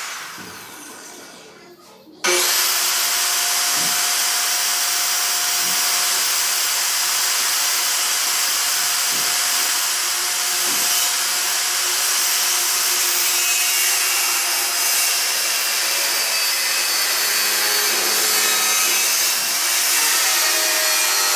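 Handheld electric circular saw cutting through a plywood sheet: a steady whine and rasp of the blade in the wood that starts about two seconds in and holds without a break.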